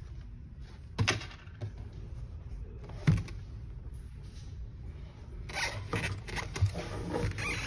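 Items being handled on a wooden desk, including a leather tablet case: a light knock about a second in and another about three seconds in, then a few seconds of rustling and small taps near the end.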